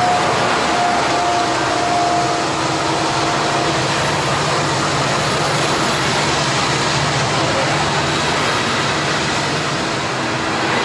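Freight train passing at close range: a BNSF SD70MAC diesel locomotive goes by, its steady tones fading within the first few seconds, then coal cars roll past with a continuous rumble of steel wheels on rail.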